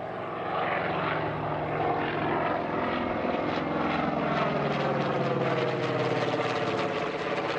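Douglas Skyraider's Wright R-3350 radial piston engine and propeller droning steadily as the plane flies overhead, the pitch sagging a little in the second half as it passes.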